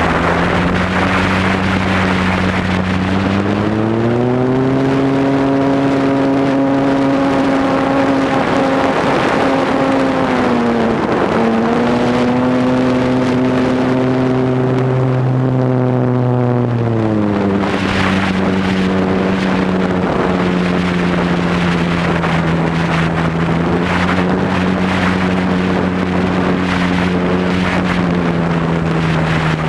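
Cub airplane's motor and propeller running, heard from a camera mounted on the plane, with rushing wind. The pitch climbs a few seconds in as the throttle is opened, dips briefly in the middle, and drops back to a lower steady note about two-thirds of the way through.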